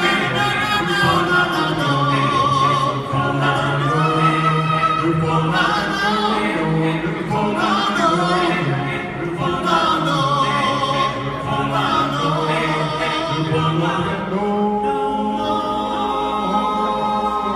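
A small vocal group singing live in close harmony without instruments, a wavering lead voice over sustained backing chords and a low bass part, settling into long held chords near the end.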